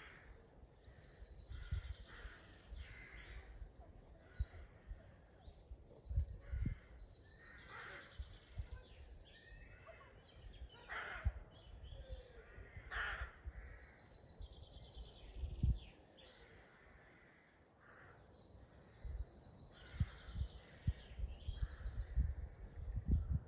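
Woodland birds singing and calling, with several overlapping songs and trills and two louder harsh calls about halfway through.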